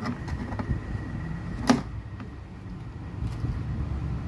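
Handling noise as the speaker's wires and circuit board are moved: a few light clicks and one sharper click a little under two seconds in, over a steady low rumble.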